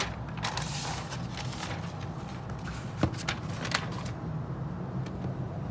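Paper and cardboard packaging being handled: rustling, then a sharp tap about three seconds in and a few lighter ticks, over a steady low hum.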